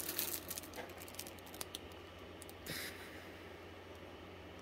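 Light crinkling and rustling of a clear plastic bag around a plastic model-kit sprue being handled, with a few small plastic clicks and two short rustles, over a low steady hum.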